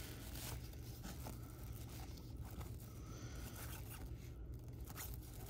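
Cardboard trading cards (1992 Upper Deck football) being slid one off another and flipped through by hand, a faint papery scraping and shuffling with small sliding strokes.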